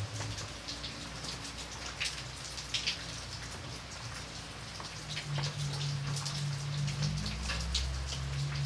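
Light rain falling, with many separate drops ticking on a surface over a soft hiss. A low rumble runs underneath and grows stronger about halfway through.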